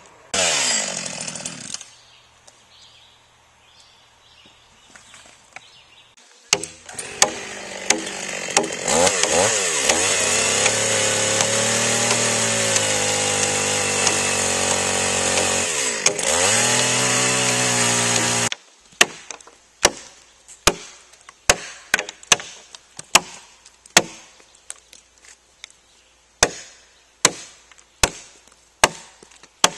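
A chainsaw briefly revs, then runs and cuts into a log for about twelve seconds, its pitch dipping under load as it bites. It stops abruptly and is followed by sharp chopping blows on wood, about one a second, as the notch is trimmed.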